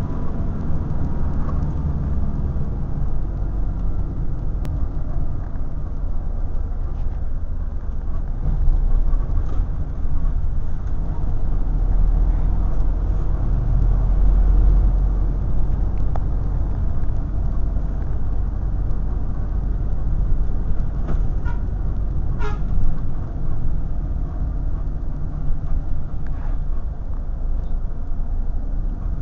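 Bus engine and road noise heard from inside the cabin: a steady low rumble that swells a little midway, with one short pitched sound about two-thirds of the way through.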